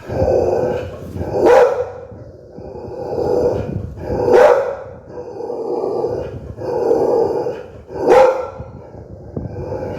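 Pit bull barking fiercely in a repeated series of deep barks, with three sharper, louder barks standing out.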